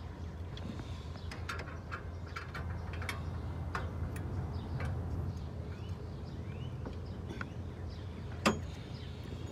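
Scattered light clicks and clinks of a socket extension and metal parts being handled in a car's engine bay, with one sharper click about eight and a half seconds in, over a steady low hum.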